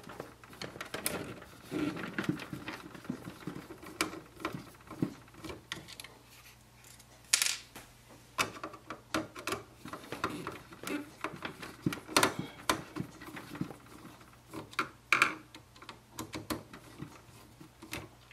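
Screwdriver backing out the small screws that hold the printhead of an Epson WorkForce WF-2850 inkjet printer: irregular light clicks and scrapes of the driver in the screw heads and against the plastic carriage, with a few louder clicks spread through.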